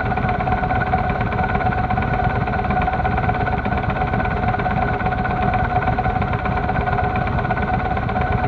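Honda Shadow V-twin cruiser idling steadily at a standstill, heard close up from a camera mounted on the bike, with a second motorcycle idling just ahead.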